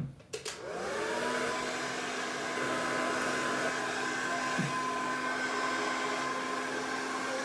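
Hair dryer switched on with a click, its motor whining up in pitch over the first second and then running steadily, blowing with a constant hum and hiss.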